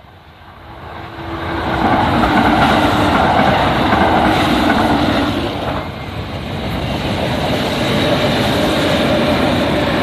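An electric train passing close by on the railway line, growing louder over the first two seconds and then running past loudly, with a short dip in level about six seconds in.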